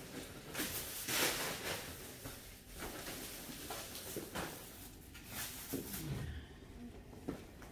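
Unpacking noises: rustling of bags and scattered knocks and clicks as things are handled and put away, with no steady sound underneath.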